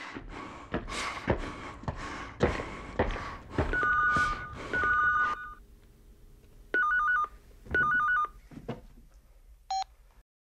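Irregular thumps and scuffs for the first few seconds, then a phone ringing with a rapid two-tone electronic warble: four rings in two pairs, followed by a single short beep near the end.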